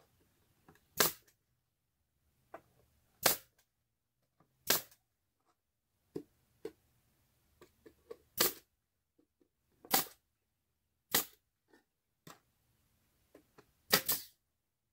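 Nails being driven into the wooden boards of a birdhouse: about eight sharp, separate strikes, a second or more apart, with a quick pair near the end and fainter taps in between.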